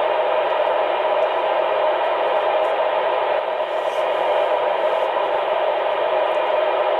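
Steady static hiss from a CB radio receiver's speaker on channel 13 with the squelch open: no station is transmitting.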